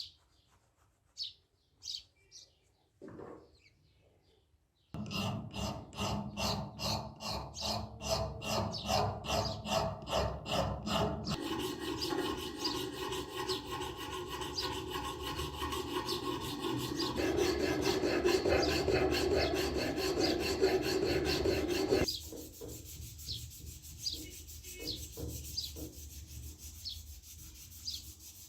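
Abrasive scraping on an old rusty folding knife. Quick back-and-forth strokes at about four a second give way to a steadier, denser scraping for about ten seconds, then quieter strokes. Birds chirp faintly before the scraping starts and again near the end.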